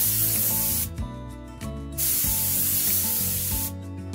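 Gravity-feed spray gun blowing compressed air in two steady hissing bursts as the trigger is pulled and released: the first cuts off about a second in, the second starts about two seconds in and stops near the end.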